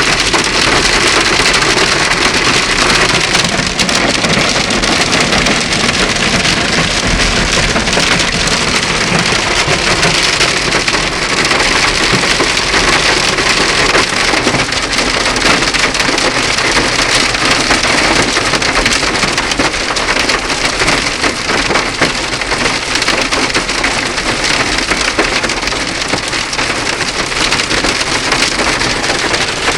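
Hail and heavy rain pelting a car: a dense, steady clatter of countless small impacts on the body and glass.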